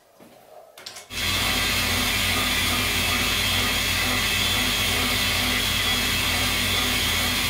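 Small metal lathe running, its chuck spinning a metal workpiece at the cutting tool: a steady machine hum with a hiss over it. It starts abruptly about a second in, after a few faint handling clicks.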